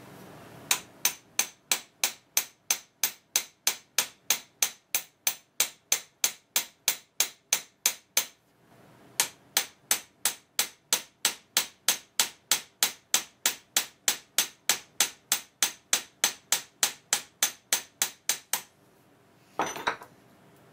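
Hammer tapping steadily on the end of a square gear post to peen it over and rivet a new steel crossfeed gear in place on the lathe apron: sharp metallic blows, about three a second, in two long runs with a short pause about eight seconds in. A brief knock or clatter comes near the end.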